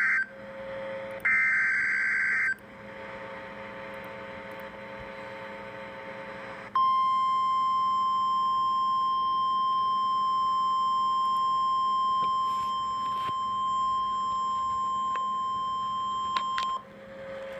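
NOAA Weather Radio Emergency Alert System signal. It opens with short warbling bursts of SAME header data. After about seven seconds the steady 1050 Hz warning alarm tone comes in, holds for about ten seconds and cuts off sharply near the end.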